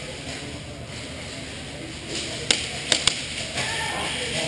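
Airsoft play in a large indoor hall: three sharp snaps, one about halfway through and a quick pair half a second later, over steady hall background noise.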